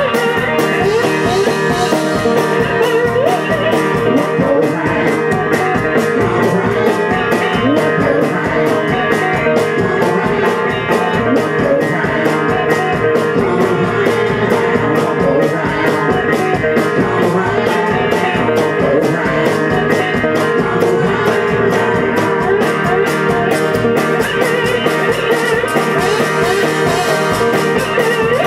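Live blues-rock band playing an instrumental passage: loud plucked electric guitar over a fast, steady percussion beat.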